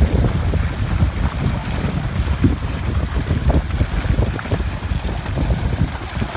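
Wind rumbling on the microphone, with water splashing and sloshing as a scoop net lifts fish out of a fishing net.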